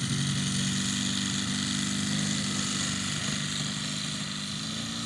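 Engine of a large radio-controlled scale model aeroplane running steadily at low throttle while the model taxis on grass, growing slightly fainter.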